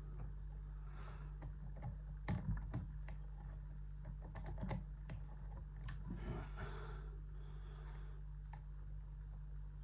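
Irregular small clicks and light scraping of a pick working the discs inside a Yuema 750F disc-detainer padlock, with a few sharper clicks, over a steady low electrical hum.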